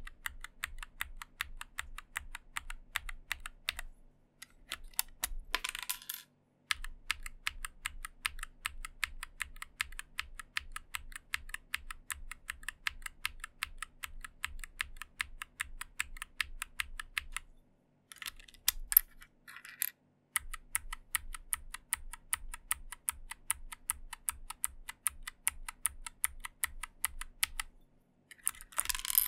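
Low-profile mechanical key switches on a Nuphy Air96 keyboard pressed over and over in quick, even runs of clicks, several a second, with short breaks between runs. The switches are a mix of swapped-in linear, tactile and clicky test switches.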